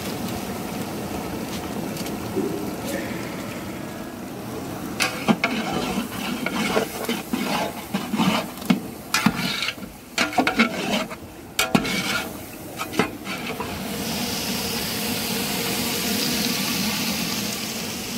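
Long ladle stirring chicken and spice masala in a large aluminium pot. Irregular scrapes and knocks of the ladle against the pot run from about five seconds in to about thirteen, over a steady hiss of the food cooking.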